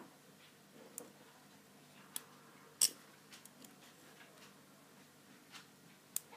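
Lock pick and tension wrench working in an American Lock 1105 padlock: irregular small metallic clicks and ticks, the loudest almost three seconds in.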